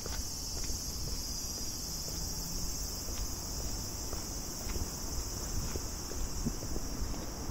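Steady high-pitched chorus of chirring insects, over a low rumble, with a few faint ticks scattered through.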